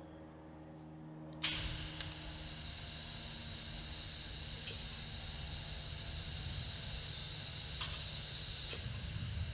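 Argon hissing steadily out of a TIG torch's gas lens with no cup fitted, starting abruptly about a second and a half in. The gas is flowing to test whether it leaks back past the lens's O-ring.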